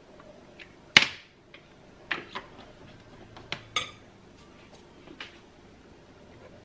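A metal spoon clinking against a glass mixing bowl. A sharp clink about a second in is the loudest, then several lighter clinks follow, one of them ringing briefly.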